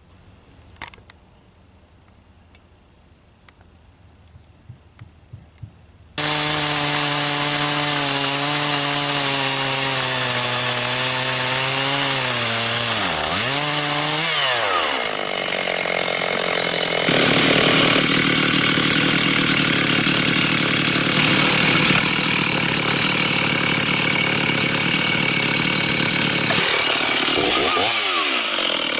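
Faint clicks for about six seconds, then a Stihl 360 two-stroke chainsaw running loud, starting suddenly. Its engine note dips and recovers about halfway through, then turns denser and rougher as the saw cuts lengthwise through a walnut log in a mini chainsaw mill, with another brief dip in revs near the end.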